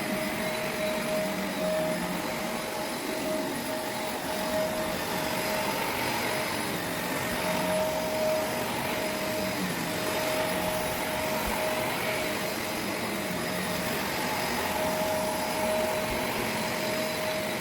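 Shark NV501 upright vacuum cleaner running as it pre-vacuums carpet: a steady motor whine over rushing air, rising and falling slightly every couple of seconds as it is worked back and forth.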